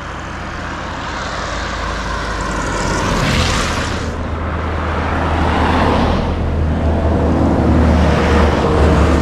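Road vehicles passing close by, their engine and tyre noise swelling to a peak about three and a half seconds in, then again around six seconds. A deep engine rumble builds toward the end.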